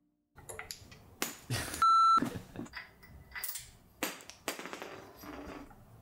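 Small hand tools and parts being handled, with sharp clicks and knocks from a hex key working a small bolt. One short, loud electronic beep sounds about two seconds in.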